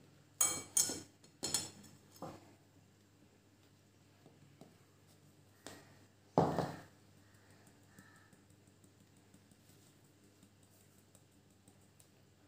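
Stainless-steel mesh strainer knocked while flour is poured into it and sifted into a bowl: four quick light knocks in the first couple of seconds, then one louder knock about six and a half seconds in.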